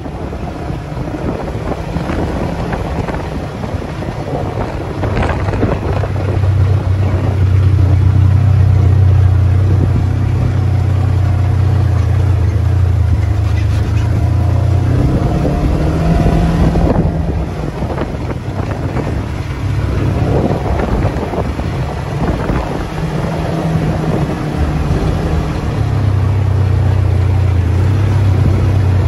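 Motor vehicle driving over a dirt track: its engine hums steadily at low pitch, easing off twice and picking up again, with wind on the microphone and occasional knocks and rattles from the bumps.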